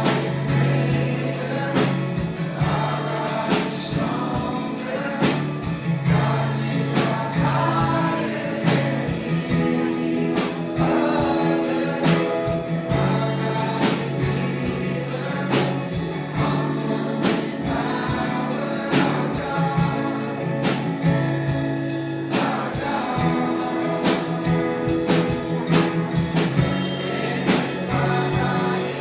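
Congregational gospel worship song: voices singing together over instrumental backing with a steady beat.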